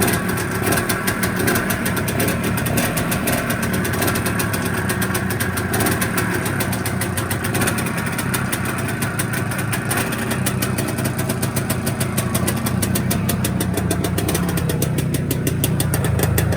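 IZh Planeta Sport motorcycle's single-cylinder two-stroke engine running on its first start after purchase and a small repair, a fast, even beat, growing fuller in the low end near the end.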